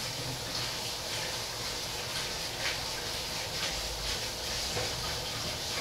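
Tap water running steadily into a kitchen sink as dishes are washed, with a few faint knife taps on a cutting board.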